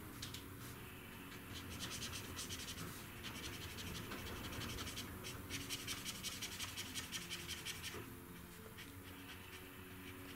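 Brush nib of a Faber-Castell PITT Artist Pen 'big brush' scratching in quick back-and-forth strokes over colouring-book paper, easing off about eight seconds in.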